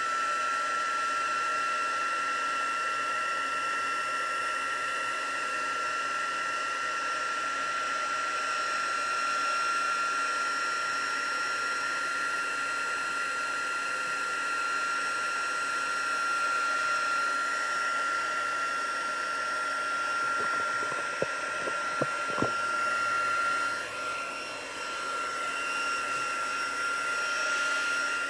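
Handheld craft heat tool running steadily, its fan blowing with a constant high whine, drying a wet inked and watered card panel. A few light clicks come about three-quarters of the way through, and the sound dips briefly a little later as the tool is moved.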